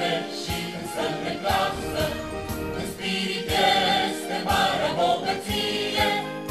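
Background music with singing voices over a steady beat.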